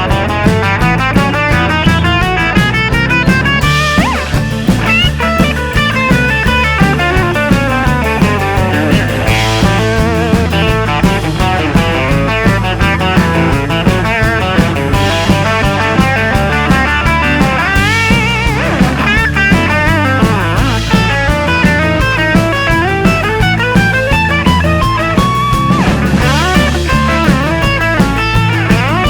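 Background rock music with electric guitar lead lines bending in pitch over a steady bass beat.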